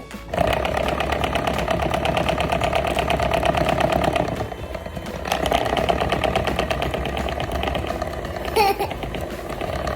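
Small electric motor of a kitchen appliance running with a fast, even whirr and rattle, easing off for about a second midway, then running again and switching off at the end.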